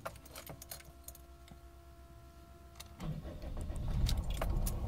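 Keys clicking in the ignition of a Chrysler Grand Voyager's 2.8 CRD four-cylinder common-rail diesel, with a faint steady whine. About three seconds in the engine cranks, catches and settles to idle: a hot start after a new camshaft position sensor, with no accelerator pedal needed.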